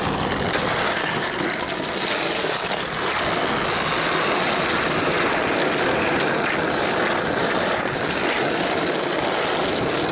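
Skateboard wheels rolling over brick paving, a steady rumble.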